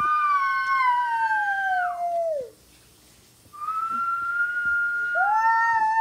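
Young boy making long, high-pitched howling sounds in play. The first howl slides down in pitch and stops about two and a half seconds in, and another starts about a second later and holds steady, with two pitches sounding together at times.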